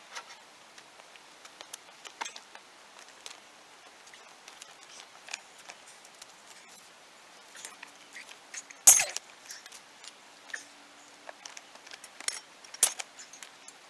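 Long-handled bolt cutters biting through steel rebar, a sharp crack about nine seconds in and another near the end, among small clicks and scrapes of the tool and boots shifting on loose rock.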